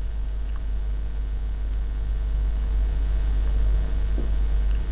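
Steady low electrical hum in the recording, with no other clear sound.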